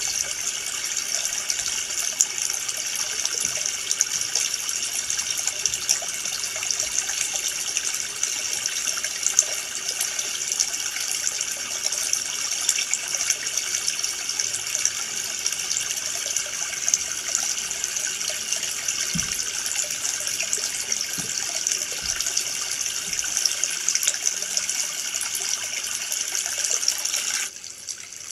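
Steady rush of water from a waterfall and stream, a bright hiss with little bass. Near the end it drops suddenly to a quieter level.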